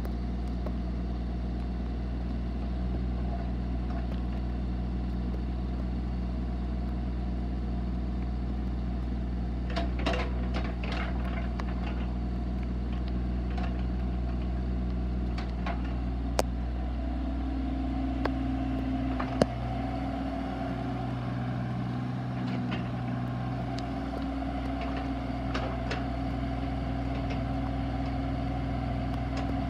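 Bobcat E32 compact excavator's diesel engine running steadily as the boom, arm and bucket are worked hydraulically. Its note changes partway through as a higher tone joins, and a few sharp clanks are heard.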